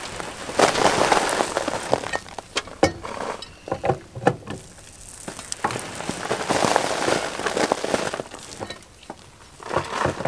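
Loose bulk garden soil sliding off a cargo unloader's dragsheet and pouring into a steel tractor loader bucket, a crumbly rushing that swells and fades in surges, with scattered sharp clicks and knocks.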